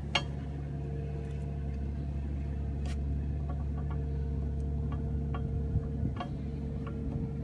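Engine of a Case 480C backhoe idling steadily, with a few light metal clicks from the pin and fittings being handled.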